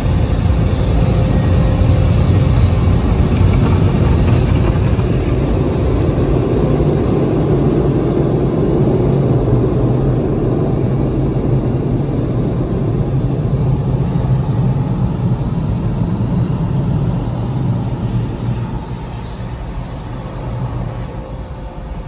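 Car wash dryer blowers running, heard from inside the car's cabin: a loud steady rush of air with a low hum. It fades over the last few seconds as the car pulls clear of the dryer.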